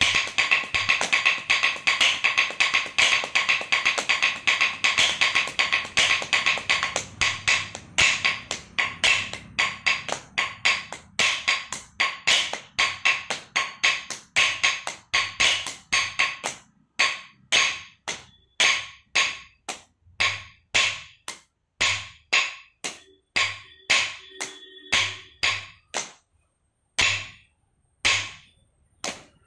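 Chenda practice strokes: wooden sticks beaten on round wooden practice blocks in the thakkita rhythm drill (saadhakam). The strokes come fast and dense at first, then thin out and slow until they fall about a second apart near the end.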